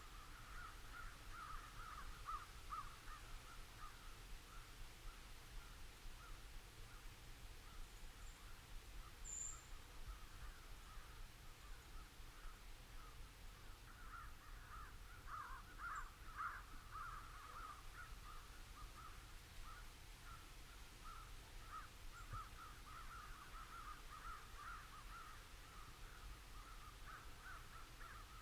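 Faint, continuous cawing of a distant crowd of crows, many calls overlapping into a steady chorus that swells in the middle. A single brief high bird chirp about nine seconds in.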